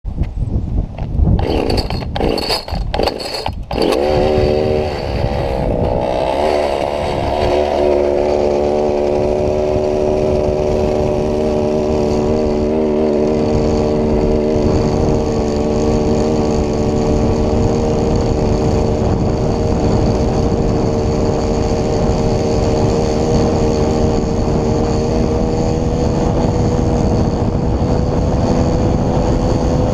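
33cc Homelite two-stroke chainsaw engine on a homemade motorized bicycle: a few sharp knocks and short bursts, then the engine catches about four seconds in. It revs up and runs at a steady high pitch at full throttle while the bike is ridden.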